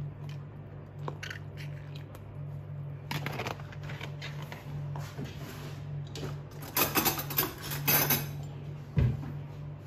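Clinking and clattering against a ceramic bowl, loudest about two-thirds of the way in, then a single low thump near the end. A steady low hum runs underneath.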